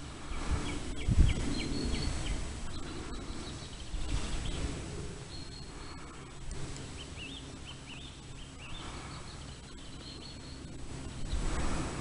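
Wild birds singing in short chirping phrases, in two spells, over a low rumbling noise with a thump about a second in.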